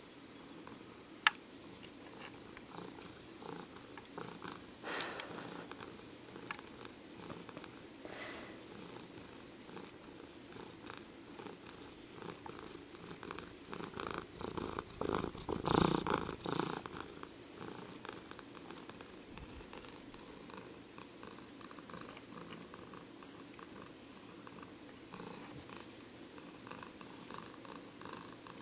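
Domestic cat purring steadily, with a single sharp click about a second in and a louder stretch about halfway through.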